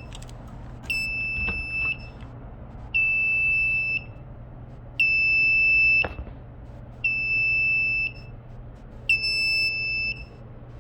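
Fire alarm sounding a high-pitched electronic beep, about one second on and one second off, five times over. The residents suspect it is going off because its battery is disconnected.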